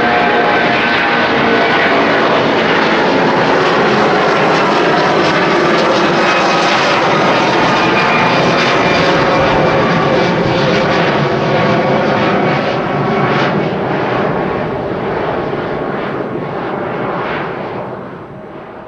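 Airbus A330-300's twin Rolls-Royce Trent 700 turbofans at takeoff thrust: a loud, steady jet roar with engine tones that slowly slide lower as the aircraft moves away, fading out near the end.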